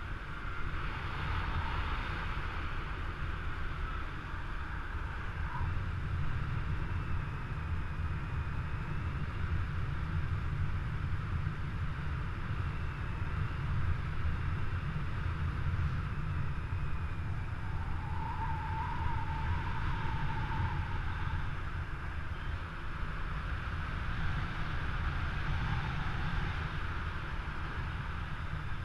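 Wind rushing over the microphone of a camera on a paraglider in flight: a steady, heavy rumble, with a few faint wavering whistles at times.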